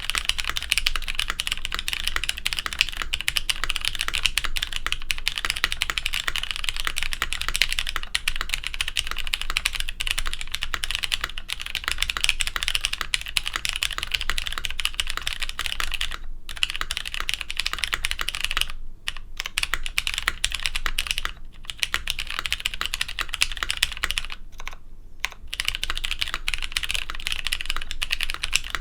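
Fast, continuous typing on a CM Storm Quickfire TK mechanical keyboard fitted with Cherry MX Brown switches on a stainless steel half plate, a dense run of key clacks with a few short pauses in the middle stretch.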